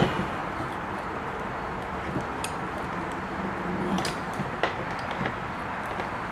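A few light clicks and taps of small parts being handled on a sewing machine's lamp fixture, over a steady background hiss.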